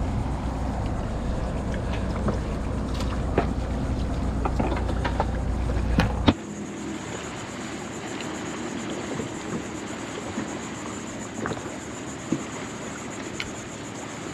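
Steady low wind rumble on the microphone with sharp clicks and taps of hands handling bait gear, ending in a loud click about six seconds in. It then drops suddenly to a quieter hiss with a faint steady high whine and a few light ticks.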